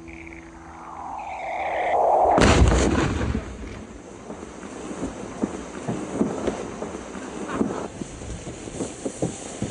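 A loud boom about two and a half seconds in, like an explosion, cutting off the music and followed by a long string of scattered pops and knocks like debris raining down.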